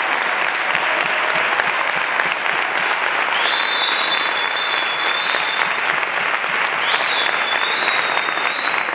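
Concert audience applauding steadily in a theatre hall, with two long, high whistles over the clapping from about a third of the way in.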